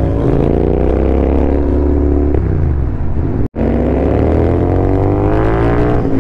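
Royal Enfield Continental GT 650 parallel-twin with an aftermarket exhaust, accelerating through the gears. The pitch climbs, drops at a gear change about two and a half seconds in, breaks off for an instant a second later, then climbs again.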